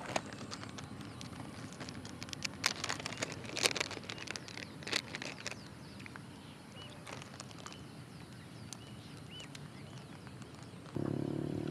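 Outdoor dusk ambience of scattered sharp clicks and a few short, high bird chirps. About a second before the end, a louder steady hum with a low drone starts abruptly.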